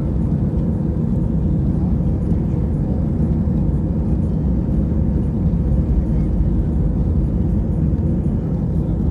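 Airbus A319 cabin noise during takeoff: a steady, loud low rumble of the jet engines and airflow heard from inside the passenger cabin.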